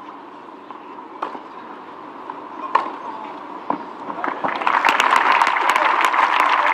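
Tennis ball struck by rackets in a rally on a clay court, three sharp hits about a second and a half apart, then a crowd applauding loudly for the last two seconds, cut off abruptly.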